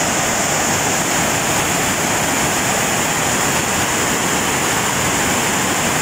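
Rain-swollen river rapids rushing over rocks in whitewater: a steady, loud rush of water with no breaks.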